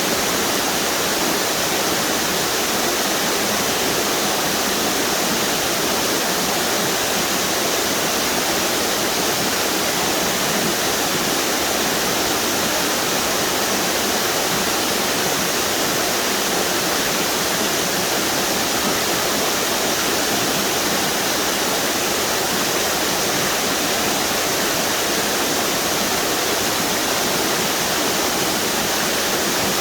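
Waterfalls on a river pouring steadily over rock ledges: an even, unbroken rushing of falling water.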